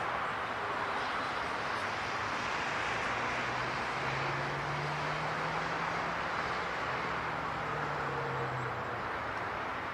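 Metrorail electric multiple unit approaching slowly: a steady rumble, with a low hum that comes in about three seconds in and fades near nine seconds.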